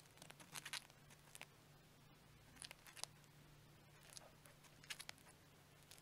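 Cockatiel grinding its beak: faint, dry scraping clicks in several short runs a second or so apart. Beak grinding is the sound of a relaxed bird getting drowsy.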